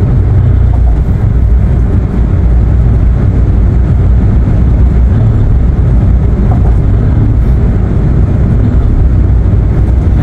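Steady low rumble of a moving passenger van's road and engine noise, heard inside the cabin while it cruises along an expressway.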